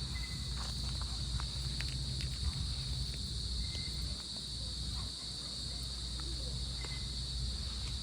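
Crickets trilling in a steady, high-pitched chorus over a low rumble of wind, with a few small clicks and three short faint chirps.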